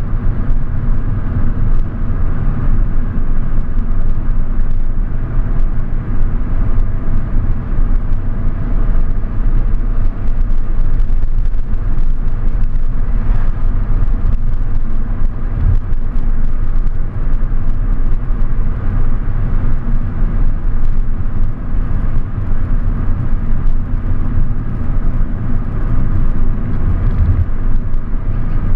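Car driving along a road: a steady rumble of engine and tyre noise, with no separate events.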